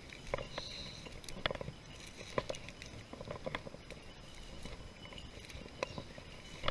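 Faint, irregular ticks and rustles of footsteps brushing through tall dry grass.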